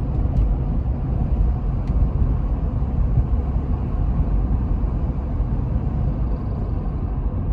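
Steady low rumble of a vehicle in motion, the same through the whole pause.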